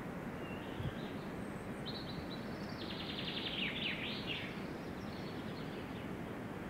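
A songbird singing a short trilled song over a steady outdoor hiss of background noise. The song starts about two seconds in and lasts a couple of seconds.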